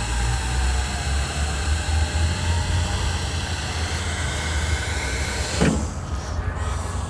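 Electric water pump of a water-tank weight machine running steadily with a whine over a low hum, draining water from the tank to lower the resistance. Near the end it is switched off and its pitch drops away quickly.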